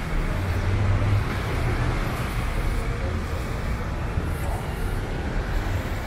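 Steady road traffic noise with a low engine rumble, loudest about a second in.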